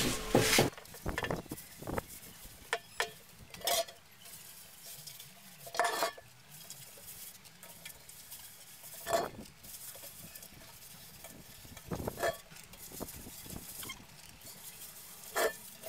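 A hand smearing wet cleaning paste over the outside of a metal cooking pot: soft, wet rubbing, with a few short knocks of the pot every few seconds.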